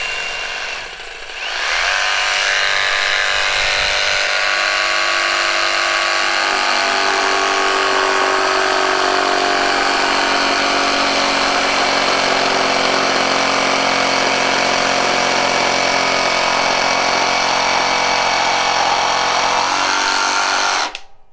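Flex 24V cordless jigsaw on high speed with orbital action off, cutting yellow pine with a multi-purpose blade: a steady motor whine and blade rasp that settles into the cut about two seconds in and stops abruptly near the end.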